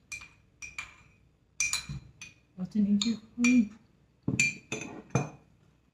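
A black spoon clinking repeatedly against a white bowl while stirring and scooping noodle soup: about a dozen light, sharp clinks in uneven clusters. A short hummed voice comes in around the middle.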